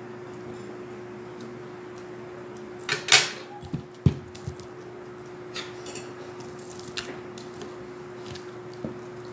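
A short loud sip from a glass mug, then the heavy glass mug knocked down onto the table twice; a few light clicks of a fork on a plate follow, over a steady low hum.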